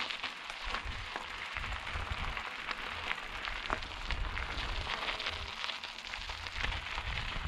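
Bike tyres rolling over a loose dirt and gravel trail: a steady crunching noise with many small scattered clicks and rattles.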